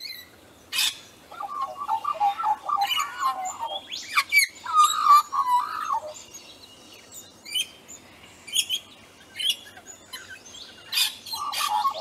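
Wild birds singing: several warbling phrases, in the first half and again near the end, among short, sharp, high chirps.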